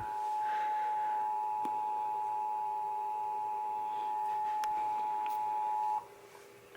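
Emergency Alert System two-tone attention signal: two steady tones near 853 and 960 Hz sounding together, cutting off abruptly about six seconds in.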